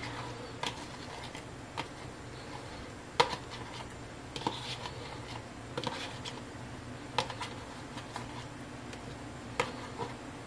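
Chopped mushrooms being scraped and tapped out of a plastic bowl into a pot: light, irregular knocks and clicks, the loudest about three seconds in, over a steady low hum.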